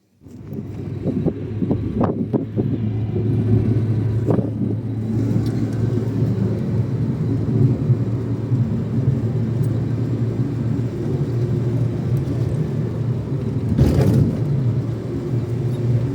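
A motor vehicle running: a steady low rumble with a constant hum, with a few knocks and rattles in the first few seconds and again near the end.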